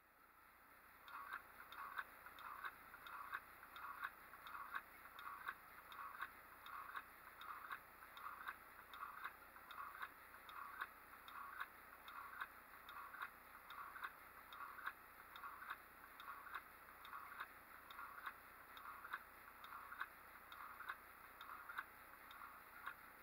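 Homemade solenoid engine running on 9 volts: a steady rhythm of mechanical clicks as the solenoid drives the flywheel round.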